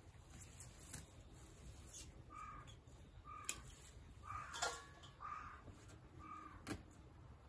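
Faint crow cawing: five short caws about a second apart, the middle one loudest, with a few sharp clicks in between.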